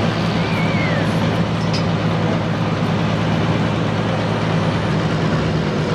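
Turbocharged diesel engine of an International Harvester 1466 pulling tractor running hard under load as it drags a weight-transfer sled, holding a steady pitch.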